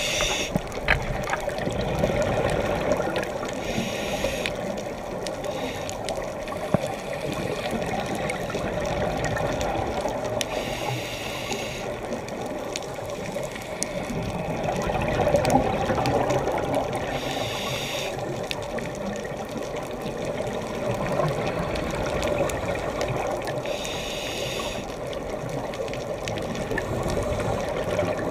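Underwater scuba-dive ambience: a steady muffled wash of water, broken four times, about every seven seconds, by a roughly one-second gush of exhaled bubbles from the diver's regulator.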